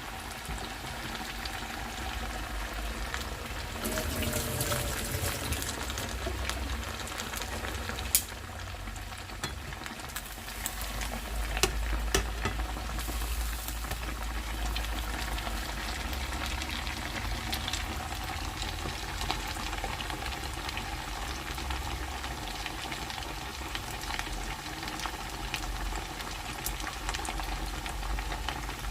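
Pork pieces deep-frying in hot oil, a steady sizzle with a few sharp pops or clicks along the way.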